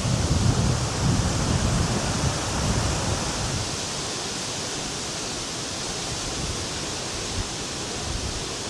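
Strong wind rushing, with low rumbling buffeting on the microphone in the first few seconds that then eases into a steady hiss.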